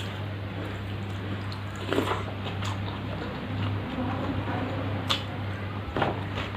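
Close-up eating sounds of wet water rice being mixed and chewed, with squishing and a few sharp smacks or clicks about two, five and six seconds in, over a steady low hum.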